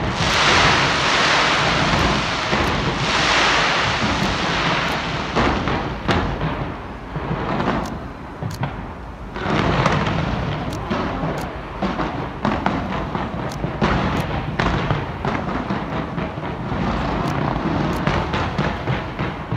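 Large fireworks display: a dense, continuous barrage of bangs and crackling, easing briefly about eight seconds in before picking up again.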